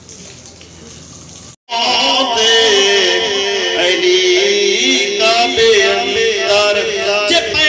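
A man's voice singing a devotional chant into a microphone over loudspeakers, loud, with long held and wavering notes. It starts abruptly about a second and a half in, after low background noise and a brief dropout.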